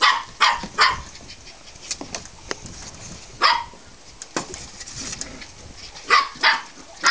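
Pumi puppies barking in short, high yips: three quick ones at the start, a single one midway, and two more near the end.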